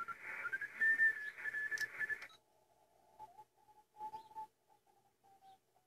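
Receiver audio from a Kenwood TS-450SAT HF transceiver on the 10 MHz band: band hiss with a whistling beat tone that rises in pitch as the dial is turned. A little over two seconds in, the hiss cuts off as the narrow 250 Hz CW filter is switched in. After that only a thin whistle is left, breaking up and coming and going.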